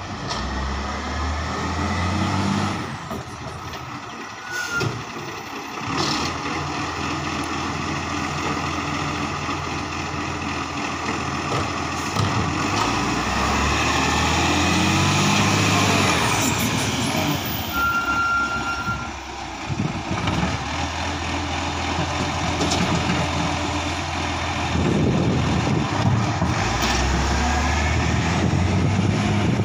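Dennis Eagle side-loader garbage truck collecting wheelie bins: its diesel engine idles and revs up in bouts to drive the hydraulic lifting arm, with short air-brake hisses. A single short beep sounds a little past halfway.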